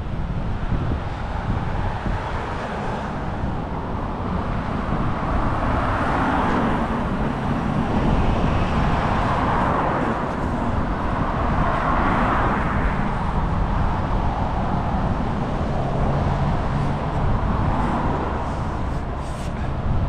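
Street traffic: cars passing with tyre noise that swells and fades several times over a steady low rumble.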